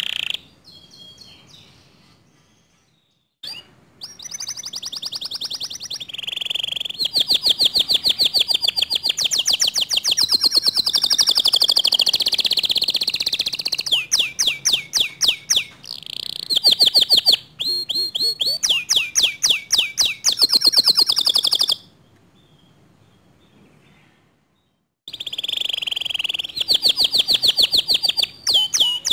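Domestic canary singing long, loud runs of rapid repeated notes, high-pitched, in trills that shift pitch from phrase to phrase. The song breaks off twice for a few seconds, once soon after the start and once near the end.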